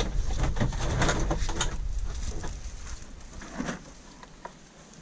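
Wind buffeting the microphone, easing off after about three seconds, with rustling and light knocks of plastic goose decoys being handled and stacked.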